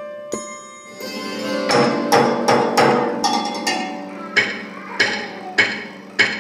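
Hammered dulcimer playing: a few light ringing notes, a swell about a second in, then loud accented struck notes, roughly two or three a second, each ringing on.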